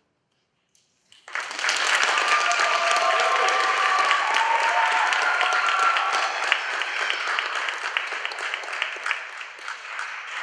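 Audience applauding: after a second of silence the clapping starts all at once and stays steady, with a few voices cheering over it in the middle, then thins out near the end.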